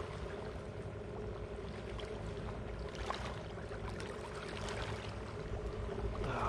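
Steady low mechanical hum of a running engine, with a light click about three seconds in.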